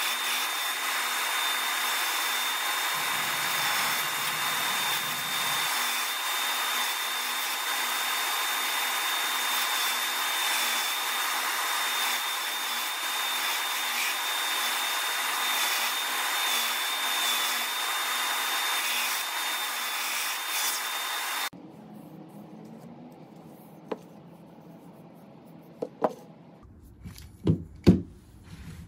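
Benchtop belt sander running, with a steady high whine, as a wooden box blank is pressed against the belt and its edge sanded. The sound stops abruptly about two-thirds of the way through, leaving quiet handling with a few short knocks on a workbench.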